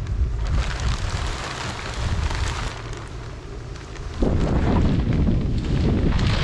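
Wind buffeting the microphone: a steady low rumble that turns sharply louder and heavier about four seconds in.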